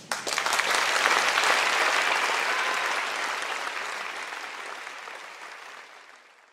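Theatre audience applauding, the clapping dying away gradually to silence near the end.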